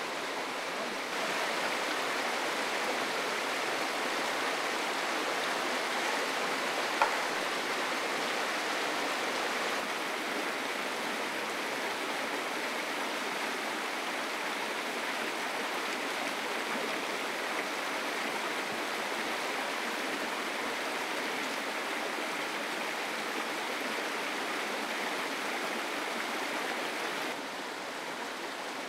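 Steady rush of flowing water, like a swollen stream, with one sharp click about seven seconds in.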